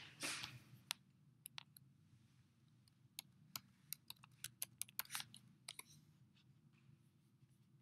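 Faint, irregular clicks and taps of fingers handling the recording device, scattered from about a second in to near the end, over a low steady room hum.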